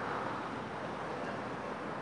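Steady outdoor background noise, an even wash with no distinct events.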